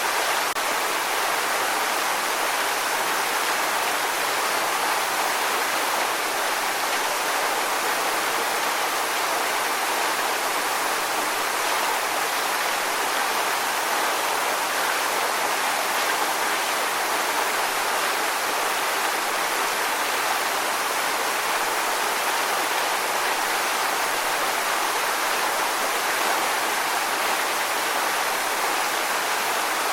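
Waterfall: a steady, even rush of falling and splashing water, mostly bright hiss with little deep rumble.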